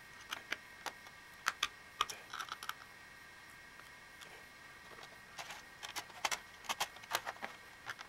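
Light, irregular clicks and taps as a small screwdriver and screws work against the plastic and metal of a laptop's drive bay and bottom cover. They come in two clusters: one in the first few seconds, and another from about five seconds in.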